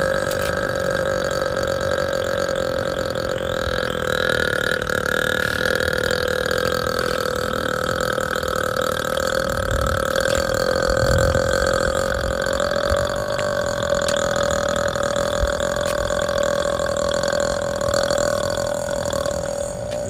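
A woman's single long burp, held at a steady pitch for about twenty seconds without a break and cutting off near the end.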